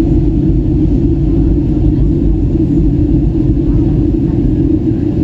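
Steady low rumble inside a Boeing 737 cabin in flight: engine and airflow noise heard from a window seat over the wing.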